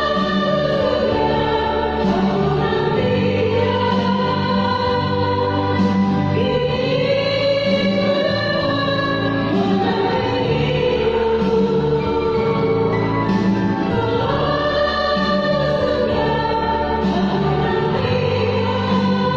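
A choir singing a slow hymn-like song in sustained, held chords that change every couple of seconds.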